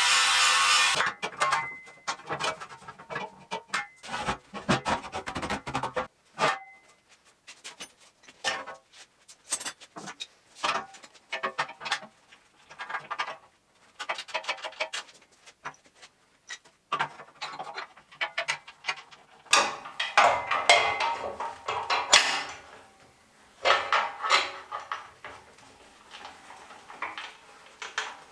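An angle grinder grinding steel stops abruptly about a second in. After that come scattered clanks, taps and scrapes of steel square tubing and clamps being handled on a steel welding table, some knocks ringing briefly, with a spell of rubbing and scraping around two-thirds of the way through.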